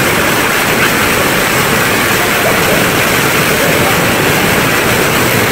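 Heavy curtain of water pouring from overhead into a pool, a loud, steady splashing onto the water surface.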